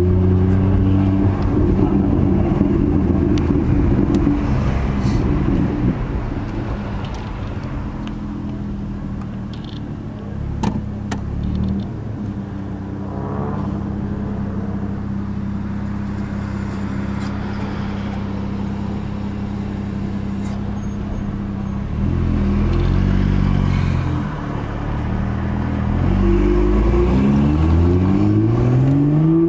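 BMW M2's N55 turbocharged straight-six with an aftermarket Akrapovic exhaust, heard from inside the cabin while driving. It holds a steady drone at a cruise for most of the time, briefly rises and falls in revs a little after twenty seconds, then pulls hard with climbing revs through gear changes near the end.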